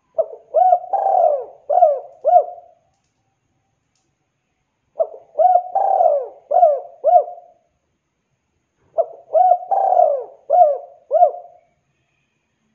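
Spotted dove (tekukur) cooing: three matching phrases of about five coos each, roughly four seconds apart, with silence between. It is the lively call a dove uses to call to other doves.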